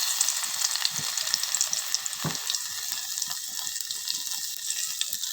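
Crushed garlic and nigella seeds sizzling hard in hot mustard oil, a dense hiss full of small pops and crackles. The garlic has just gone into the oil.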